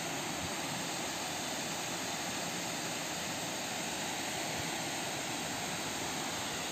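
Steady, even rushing noise that holds at one level throughout, with no distinct events.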